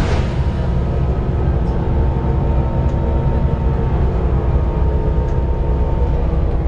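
Volvo B7TL double-decker bus's diesel engine running with a steady low rumble and a steady whine over it, the whine being typical of its cooling fan. A brief hiss right at the start.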